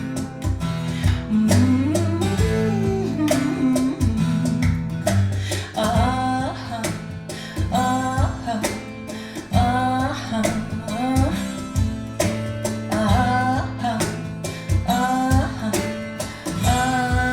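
Instrumental stretch of a blues-rock song: a guitar phrase repeating about every two seconds over bass and a steady drum beat, played back through hi-fi loudspeakers.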